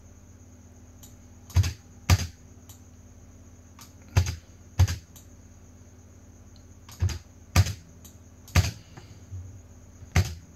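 Sharp clicks of computer input, from a mouse and keyboard, about eight of them, mostly in pairs about half a second apart, over a faint steady hum.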